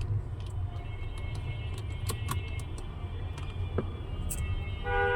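Steady low rumble of background traffic with scattered light metallic clicks from adapter parts being handled and fitted. A vehicle horn sounds briefly near the end.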